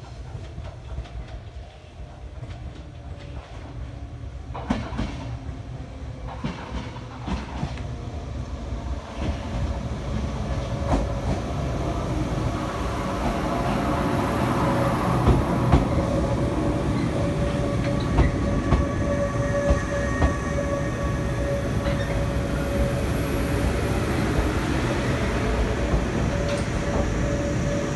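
JR West 105 series electric train approaching and running in alongside the platform, its rumble growing louder as it nears, with wheels clacking over rail joints. From about halfway a steady whining tone joins the rumble.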